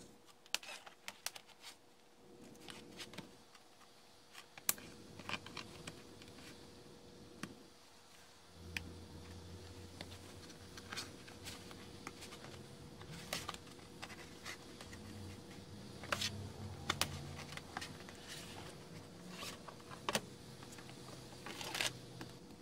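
HP Envy x360 laptop display assembly being pried and taken apart by hand: scattered sharp clicks and scraping rubs of the housing and panel, with a faint steady electrical hum underneath.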